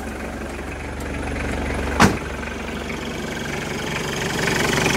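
Mitsubishi L200 Strada turbo-diesel engine idling steadily, just after a cold start. There is one sharp knock about two seconds in, and the engine grows louder near the end.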